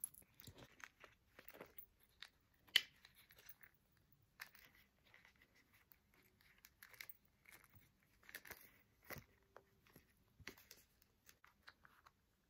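Faint handling sounds of a black leather strap being threaded through a small monogram earphone case: soft rustles and small scattered clicks, with one sharper click about three seconds in.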